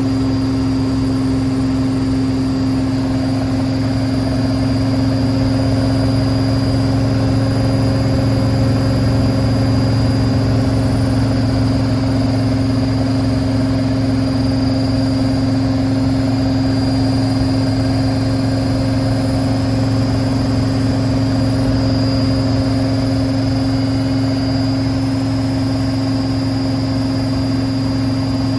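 Hotpoint WML540 Aquarius washing machine on its final spin with the door open, drum and motor running at steady high speed. A low hum and a steady high whine hold without change.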